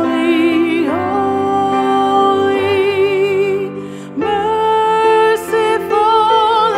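Slow, tender music with long held notes sung or played with vibrato, easing off briefly about four seconds in before the next phrase.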